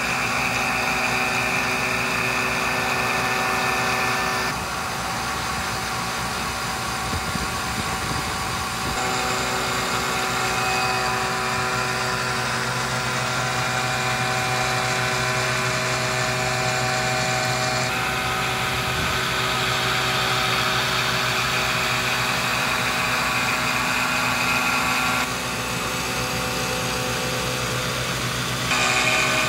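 A CNC Bridgeport mill's end mill roughing a round aluminium housing. The spindle and cutter give a steady cutting whine made of several held tones, and the pitch and loudness shift abruptly every few seconds.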